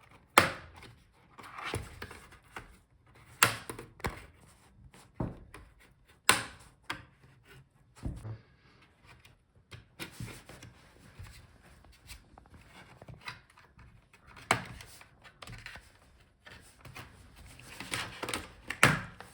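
Laptop bottom case being pried off the palmrest: a series of sharp snaps as the retaining clips release one by one, with scraping and rubbing of the pry tool and case edge between them.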